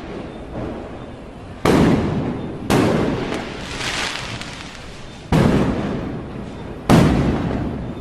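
Firecrackers going off: four loud bangs, two close together early on and two more later, each trailing off in a rolling echo over a low background rumble.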